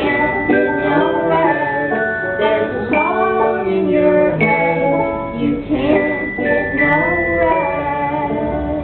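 Live band music: a singing voice over held, sustained instrument notes, carrying on without a break.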